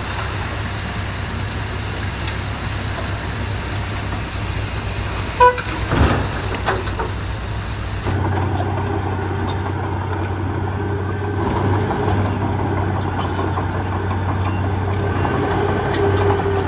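Heavy diesel engine running steadily, with one short horn toot about five and a half seconds in and a knock just after; the engine sound changes abruptly about eight seconds in.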